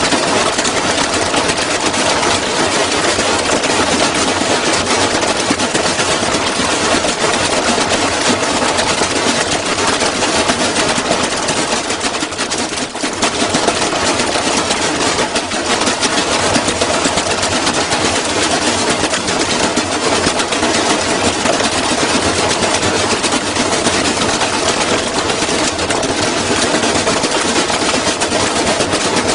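Washing machine spinning hard with a fast, continuous loud rattle, the sound of a drum running far out of balance at high spin.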